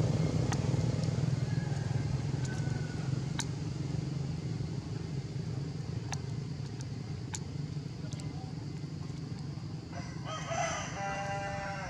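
A steady low engine hum that slowly fades, with a few faint sharp ticks. About ten seconds in comes one drawn-out, pitched animal call lasting just over a second.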